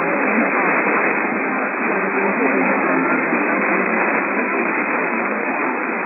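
Steady hiss of radio static from a radio receiver, with no clear voice or alert tones in it.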